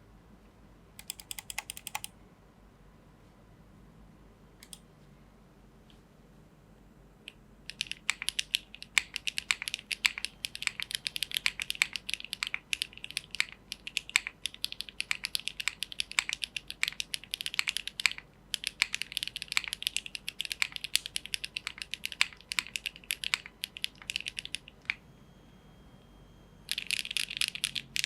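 Geonworks F1-8X V2 mechanical keyboard (aluminium plate, HMX Catmint switches, GMK Trackday keycaps) being typed on. After a brief flurry and a few lone keystrokes, steady typing starts about eight seconds in, pauses briefly around eighteen seconds and stops about twenty-five seconds in. A fast, dense run of keypresses comes near the end.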